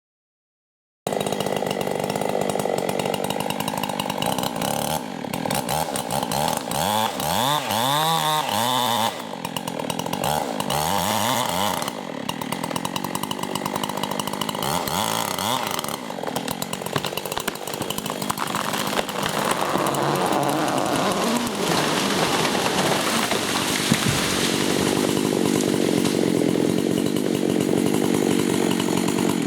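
Two-stroke chainsaw running hard and steady, starting abruptly about a second in, its engine pitch rising and falling as it works.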